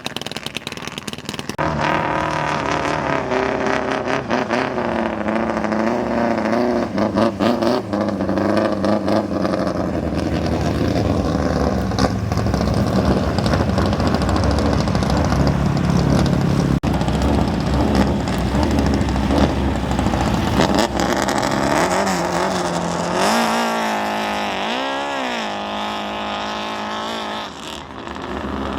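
Racing speedboat engines running hard, their pitch shifting as the boats rev. A quick rise and fall in pitch comes near the end.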